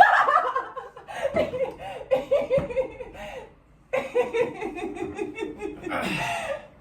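A person laughing hard in two long bouts of quick, repeated "ha" pulses, the second bout sliding down in pitch as it ends.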